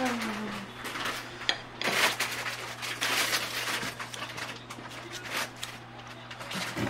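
Wet, squishy handling of napa cabbage kimchi as it is lifted and laid on a plate with a metal utensil, with light clicks of the utensil and a busier stretch of squelching and rustling two to three and a half seconds in.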